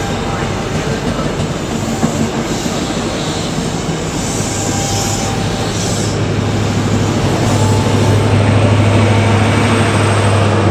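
High Speed Train's Mk3 coaches rolling past with steady wheel and rail noise, then the trailing Class 43 power car's diesel engine hum growing louder near the end as it draws level.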